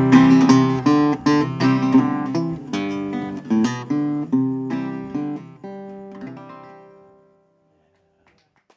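Acoustic guitar playing the closing bars of a song, plucked and strummed notes dying away about seven seconds in and leaving near silence.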